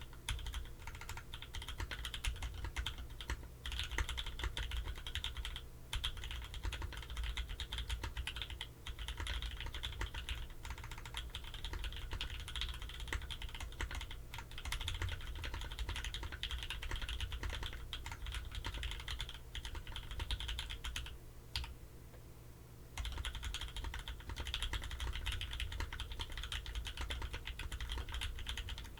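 Typing on a Hive60 mechanical keyboard with a carbon fiber plate, plate foam, Pewter switches lubed with 205g0 and fitted with 0.125 mm TX films, and GMK keycaps. The keystrokes come in a steady, dense stream, pausing for about a second and a half a little past the middle.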